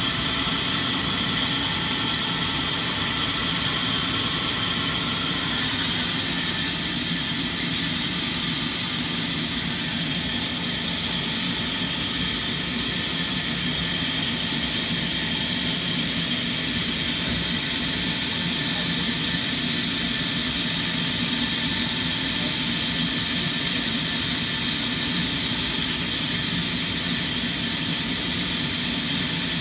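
Sawmill machinery running steadily, with an even mechanical drone and hiss.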